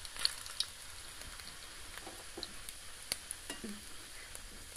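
Bread dough balls shallow-frying in coconut oil: a soft, steady sizzle with scattered small clicks and pops as a spoon turns the balls in the pan.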